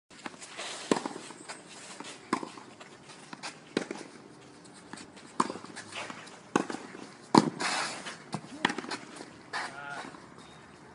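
Tennis rally on a clay court: sharp racket strikes on the ball about every second and a half, with quieter bounces and knocks between them.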